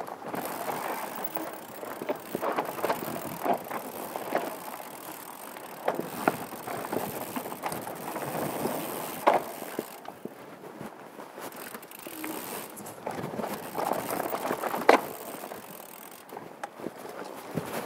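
Downhill mountain bike ridden fast over rocky dirt singletrack, heard from a helmet-mounted GoPro: tyres rolling over dirt and stones and the bike rattling, with frequent sharp knocks from rock hits, the loudest about fifteen seconds in.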